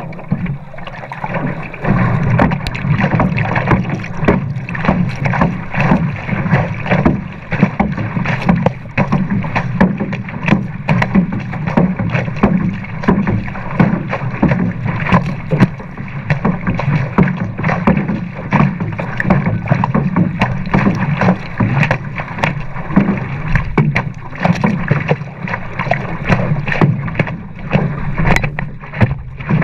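Water splashing and rushing at the nose of a stand-up paddleboard driven fast by hard paddling. The noise pulses over and over in time with the paddle strokes.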